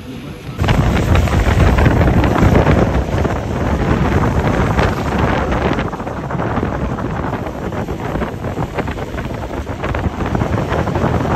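Strong wind buffeting the phone's microphone: a loud, low rush that wavers in gusts, starting suddenly about half a second in.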